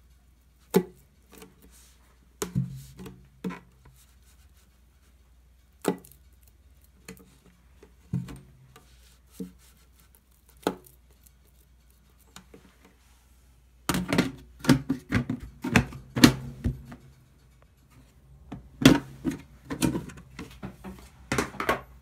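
Hands stretching and folding wet, high-hydration ciabatta dough in a plastic tub: scattered knocks and slaps of the dough and fingers against the plastic, then two dense runs of handling noise, one about two-thirds of the way through and one near the end.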